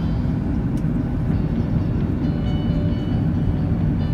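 Steady low rumble of an airliner cabin in flight: engine and airflow noise heard from a window seat.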